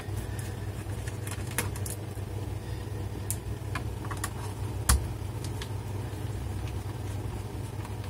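A screwdriver undoing screws in a laptop's underside case: a few scattered light clicks, with one sharper knock about five seconds in, over a steady low hum.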